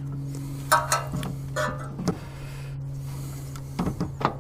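Handling noise: scattered clicks and knocks of small tools and metal parts being handled, over a steady low hum.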